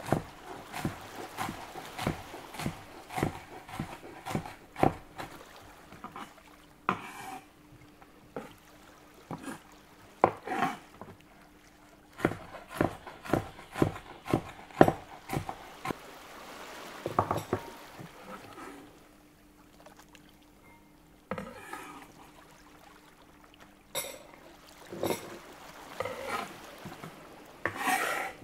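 Kitchen preparation sounds: a run of sharp clicks and knocks of utensils and dishes, with liquid being poured.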